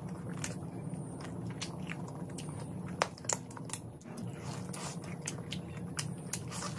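A person chewing mouthfuls of mutton curry and rice eaten by hand, with many short wet mouth clicks and lip smacks; the sharpest click comes about three seconds in.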